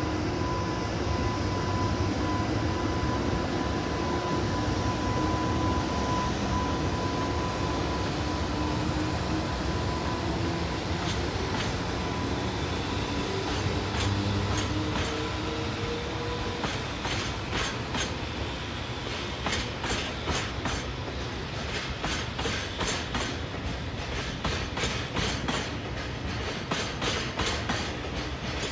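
Electric freight locomotive hauling a train of oil tank wagons, humming with a motor whine that rises as it gathers speed. Wheel clicks over the rail joints start about a third of the way in and come quicker toward the end.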